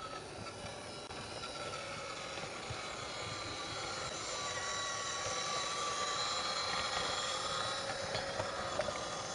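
Small 16mm-scale garden steam locomotive running with its train of wagons, a steady hiss and running noise on the track, growing slightly louder as it comes nearer.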